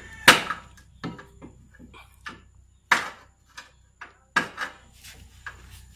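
Hand tool clicking and knocking against metal under the car during an adjustment of the steering gearbox: about a dozen sharp, irregular knocks, the loudest about a third of a second in, near three seconds and near four and a half seconds.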